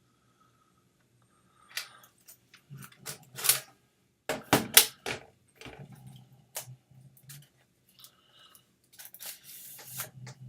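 Hands handling a Polaroid One Step instant camera: a run of irregular plastic clicks, knocks and rattles, the loudest a cluster about four and a half seconds in, then a rougher rattling stretch near the end.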